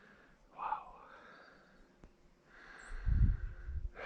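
A man exclaims "wow", then about three seconds in a low rumble of air buffeting the microphone lasts about a second.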